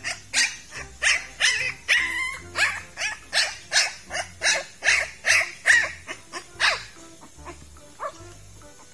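Thai ridgeback puppy yelping over and over, about two to three high-pitched yelps a second, stopping about seven seconds in.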